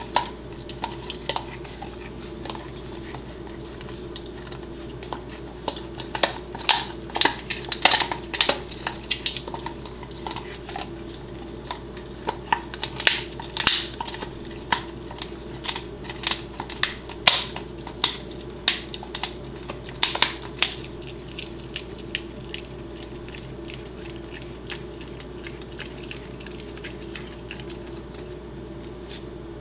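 A Pembroke Welsh Corgi chewing a dried buffalo trachea, its teeth cracking and crunching the hard, ridged cartilage in irregular bursts of sharp crunches. The crunching comes thickest in the middle and thins out to occasional bites near the end.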